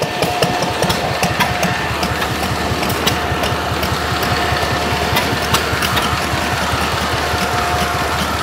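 Vintage stationary engines running steadily: a low drone with a quick, irregular patter of firing knocks and clicks.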